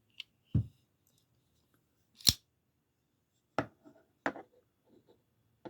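Tac Force spring-assisted flipper pocket knife being handled: a series of sharp metallic clicks and snaps as the blade is flicked open and folded shut, the loudest snap about two seconds in.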